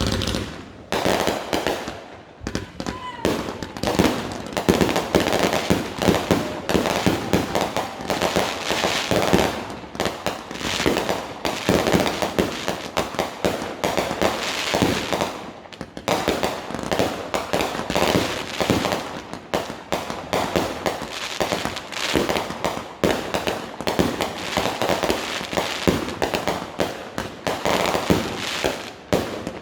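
Fireworks going off in quick succession: a dense, unbroken run of sharp bangs and crackles.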